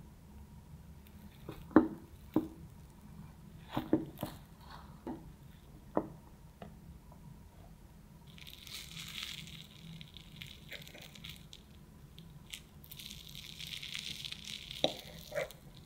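Large kitchen knife slicing down through a cream-layered sponge cake, with a few sharp knocks as the blade meets the board. Later come soft scraping, tearing hisses as a slice is lifted out and a fork cuts into the soft cake, then light clicks of the fork on the plate near the end.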